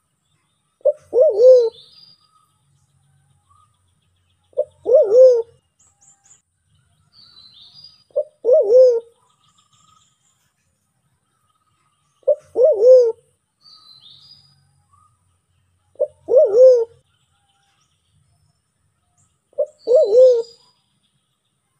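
Sulawesi black pigeon (Turacoena manadensis) calling: a brief note followed by a longer note that rises and falls, repeated six times about every three and a half seconds. Faint high chirps from other birds come between the calls.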